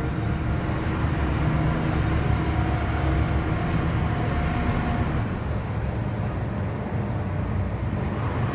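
Steady low rumble of a passenger boat under way, its engines running, with wind buffeting the microphone on the open deck.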